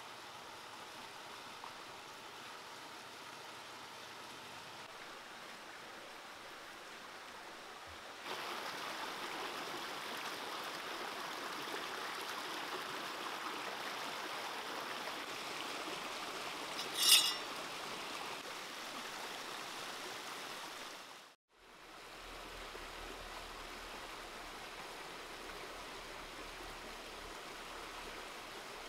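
Shallow rocky stream rushing over stones, a steady watery rush that gets louder about eight seconds in. A single sharp click about seventeen seconds in is the loudest sound. The rush cuts out briefly past twenty seconds, then goes on more softly.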